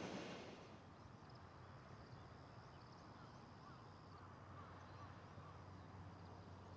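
A freight train's running noise fades away within the first second, leaving near silence with faint short chirps and a faint high steady tone.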